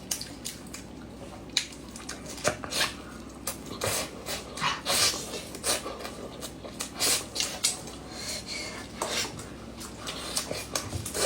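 Close-up eating sounds: irregular clicks and sharp crunches of chewing fried food, mixed with utensils clinking on dishes.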